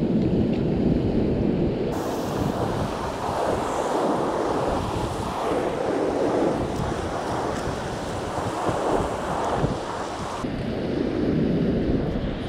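Surf washing against a rocky shore, mixed with wind buffeting the microphone: a continuous rush of noise with slow swells in loudness.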